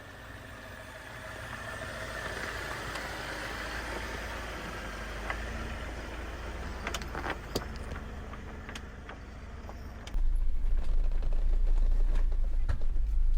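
Jeep driving a muddy off-road trail: engine and tyre noise building steadily, with a few sharp knocks. About ten seconds in it cuts abruptly to a much louder low rumble.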